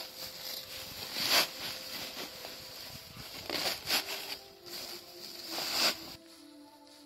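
Rustling of freshly cut green grass being pressed by hand into a woven sack, in several loud swishes. It stops abruptly a little after six seconds in.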